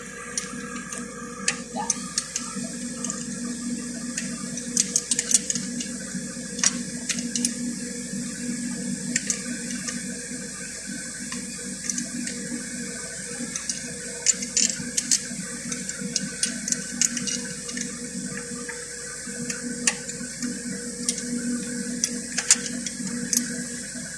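Scattered short metallic clicks and taps from hands and tools working a new alternator onto its mounting bracket, over a steady background noise with a low hum.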